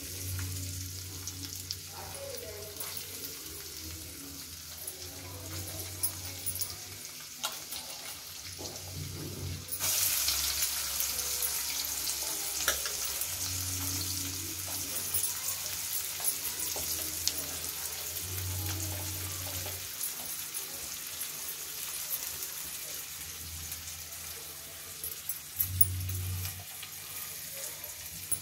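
Chopped garlic and onions sizzling in hot oil in a kadhai. The sizzle gets much louder about ten seconds in and stays up, with a few small clinks.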